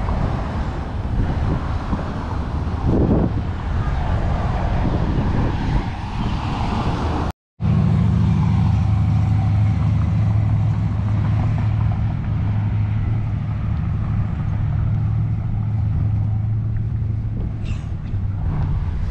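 Street traffic with wind on the microphone. After a brief dropout about seven seconds in, a vehicle engine's low, steady hum takes over.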